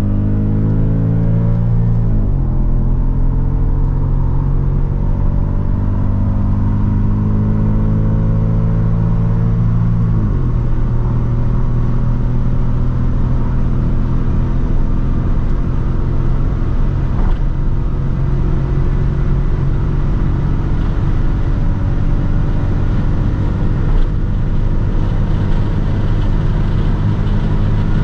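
Audi S6 Avant's 4.2-litre V8 at full throttle, heard inside the cabin, its note climbing steadily. The pitch drops sharply at an upshift about two seconds in and again about ten seconds in. After that it climbs slowly for the rest of the stretch, over rising road and wind noise.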